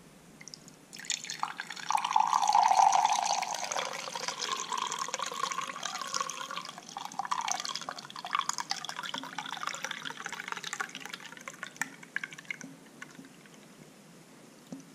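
Coconut milk wrung by hand from wet grated coconut, trickling and dripping into a drinking glass. It starts about a second in and fades out near the end.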